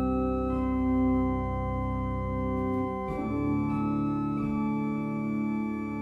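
Klais pipe organ playing slow, sustained chords. A deep bass note is held under them until about halfway, and the chords change several times.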